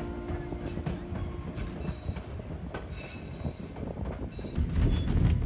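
Passenger train running, heard from on board: a steady rumble of wheels on the rails with brief high-pitched wheel squeals twice, the rumble growing louder near the end.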